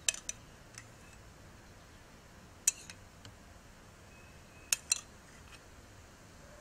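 Light, sharp clinks of dishware, a small ceramic cup against a metal baking pan, as rum is sprinkled by hand over pineapple slices. They come in small clusters of one to three about every two seconds.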